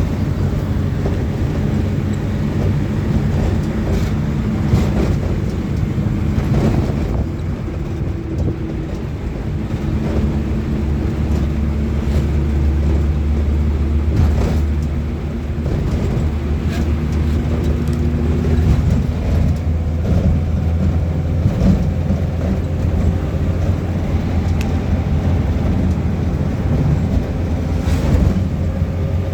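A vehicle's engine running steadily, a continuous low hum, with scattered short clicks and rattles.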